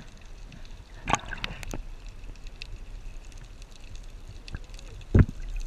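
Underwater sound picked up by a submerged camera: a low rumble of moving water with scattered small clicks and crackles, and two dull thumps, one about a second in and a stronger one near the end.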